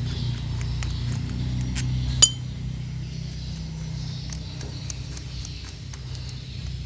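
Small metal parts and tools clinking during carburetor work, with many light ticks and one sharp ringing clink about two seconds in, over a low steady hum.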